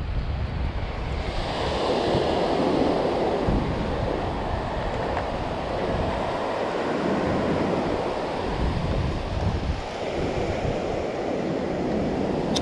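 Ocean surf breaking and washing up a sandy beach, swelling louder about a second and a half in and again about ten seconds in, with wind rumbling on the microphone.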